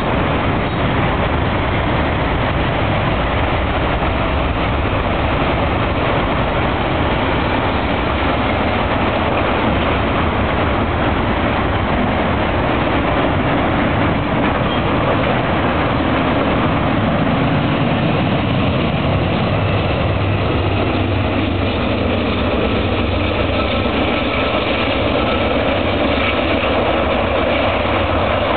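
Double-stack container train passing close by: a steady loud rumble and clatter of the well cars rolling over the rails, with a steadier low hum coming up in the second half.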